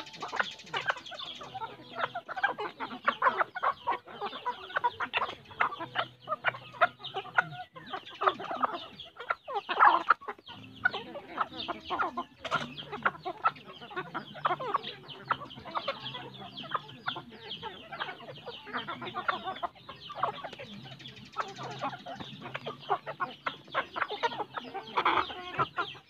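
A flock of domestic chickens clucking continuously while they peck at feed on the ground.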